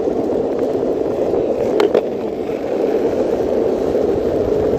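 Longboard wheels rolling on an asphalt path, a steady rumble, with two short clicks about two seconds in.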